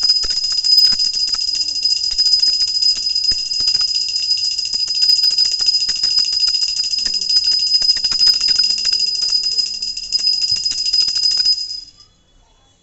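Small brass puja hand bell rung rapidly and without pause, its clapper clicking fast against the bell under a steady high ring, until it stops about a second before the end.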